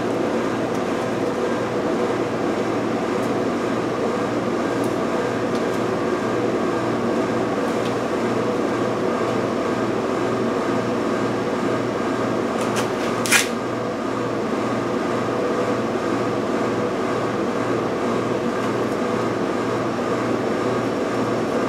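A steady machine whir with a low hum that pulses evenly, about two to three times a second, and a single sharp click about thirteen seconds in.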